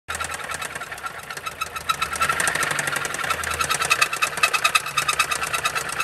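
Dodge Caliber's 2.4-litre four-cylinder engine running with a fast, even knocking. The engine is knocking really bad, an internal fault serious enough that a new engine is recommended.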